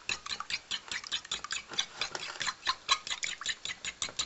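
Eggs being beaten in a ceramic mug: a metal utensil clicks against the inside of the mug in a fast, even rhythm of about ten taps a second.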